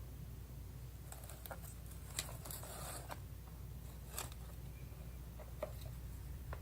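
Faint scraping and rustling with a few sharp clicks: a metal soil blocker being worked and damp potting-soil blocks being set into a plastic seed tray, over a low steady hum.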